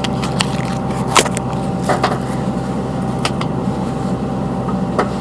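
Caterpillar 320C hydraulic excavator's diesel engine idling steadily, with a thin steady whine above the engine hum. A few sharp clicks and knocks are scattered over it, the loudest about a second in.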